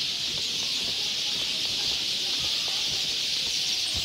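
Steady high-pitched chorus of insects, with a few short bird chirps and soft footsteps on paving.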